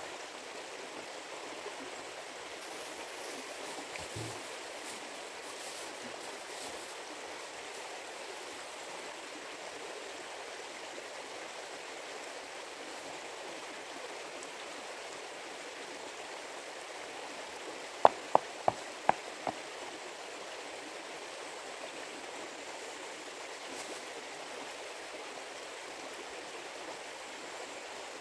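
A shallow river running steadily, a constant rush of water. About two-thirds of the way through, five sharp taps in quick succession stand out as the loudest sounds.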